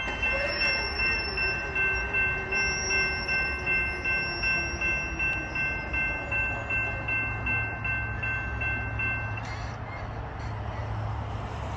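Railroad grade-crossing warning bell ringing about twice a second, stopping suddenly about nine seconds in, over the low rumble of a train that has just passed.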